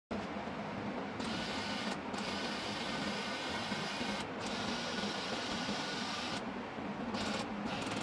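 Homemade robot car's small electric drive motors whirring as it is driven by radio remote. The whir cuts out and starts again several times as the joystick is moved, with a longer pause a little before the end.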